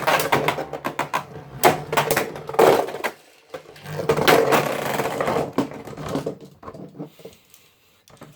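Beyblade spinning tops, Greatest Raphael against another top, whirring and clashing in a plastic stadium, with a fast run of sharp clacks over a steady hum. The clashing dies down about 3 s in, then a second loud stretch of whirring and hits starts and fades near the end.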